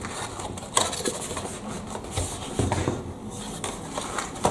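Handling noise from a microphone pouch and its packaging being handled: rustling broken by small clicks and light knocks.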